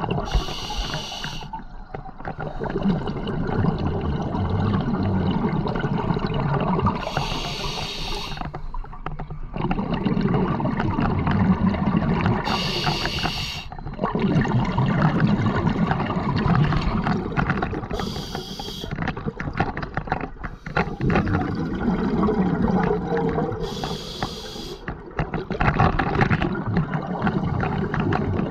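Scuba diver breathing underwater through a regulator: five short hissing inhalations about every five to six seconds, each followed by a long rush of exhaled bubbles.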